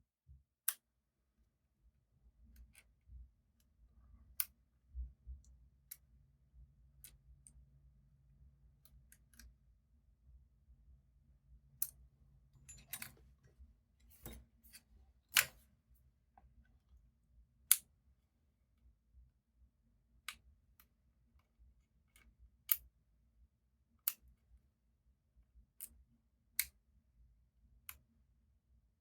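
Scattered small sharp clicks and taps from handling the parts of an opened iPod Mini and small repair tools, irregular and a second or two apart, with a brief cluster about halfway through, over a faint low hum.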